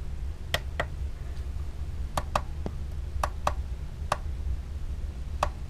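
Plastic buttons on a clock-radio speaker dock being pressed, giving a series of short sharp clicks, several in quick pairs, over a steady low hum.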